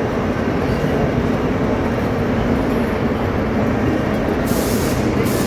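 Steady, dense din of a busy exhibition hall, a low rumble with indistinct crowd noise, with a short hiss about four and a half seconds in.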